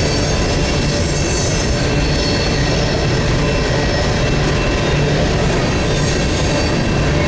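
Freight train of coal hopper cars rolling past: a loud, steady rumble of steel wheels on rail, with thin, high wheel squeals held over it.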